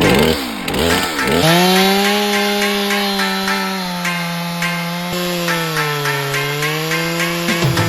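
Chainsaw running at high revs. Its engine note climbs after a second of blipping, then holds steady, sagging in pitch for a moment about two-thirds of the way through as it loads up in the cut. Music plays alongside.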